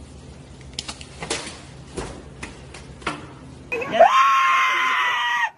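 A few faint clicks and knocks over a low hum, then, a little under four seconds in, a person lets out one long, high-pitched scream that holds nearly level in pitch.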